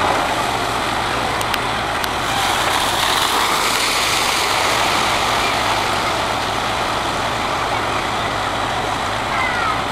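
Water rushing steadily down the chute of a water flume ride, a continuous even rush with a faint low hum underneath.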